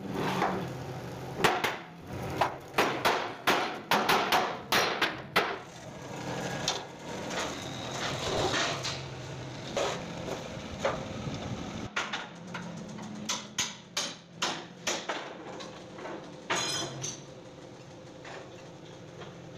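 Irregular metal knocks and clanks from steel blocks and tools being set and struck against a steel truck chassis rail on a hydraulic press bed, thickest early on and again past the middle, over a low steady hum that fades out about two-thirds of the way through.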